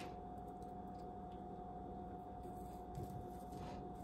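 A steady electrical hum, with a few faint, soft scrapes of a silicone spatula against a small skillet as it is worked around the edge of a fluffy egg-white omelet.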